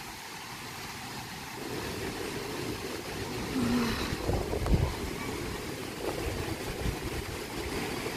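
Gusty typhoon wind blowing across the microphone: a steady low noise that swells in gusts about halfway through.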